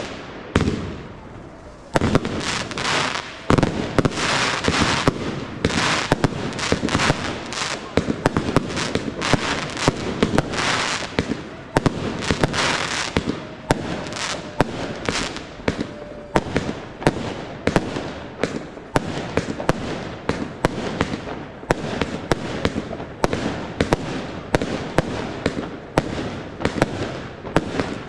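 Professional aerial fireworks display: shells launching and bursting one after another, a dense, continuous run of sharp bangs, a few each second.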